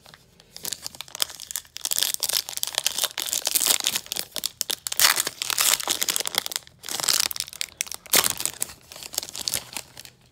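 Foil wrapper of a Panini Illusions football trading-card pack crinkling and rustling as it is torn open and handled, in dense crackly bursts that pause briefly twice.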